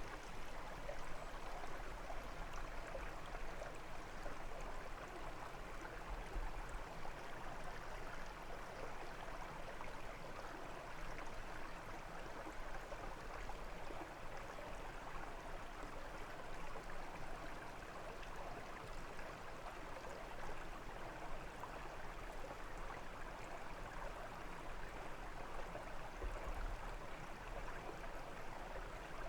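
Brook running, a steady babble of flowing water.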